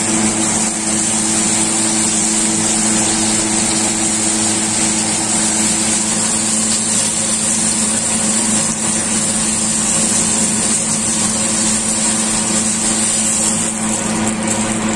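A loud, steady machine hum with a few steady tones. Over it, a T-bone steak sizzles in bubbling butter in a pan as its fat edge is seared.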